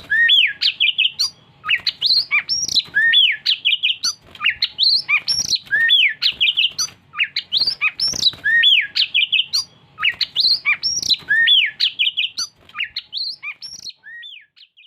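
Oriental magpie-robin (kacer) singing: loud, varied phrases of rising and falling whistles and chips, repeated about every three seconds and fading near the end.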